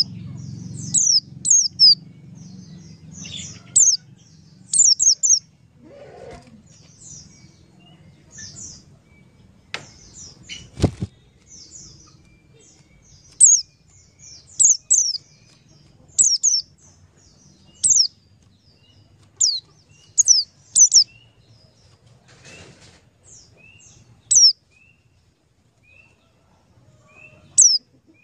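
Bird chirping: short, high, falling chirps, often two or three in quick succession, repeated every second or two, with some fainter lower notes between. A knock or two about ten seconds in.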